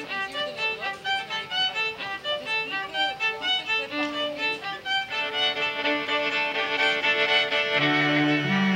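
Bowed string music led by a violin playing a lively melody of short, quick notes. About five seconds in, the sound fills out into longer held notes, and near the end a lower string line enters beneath.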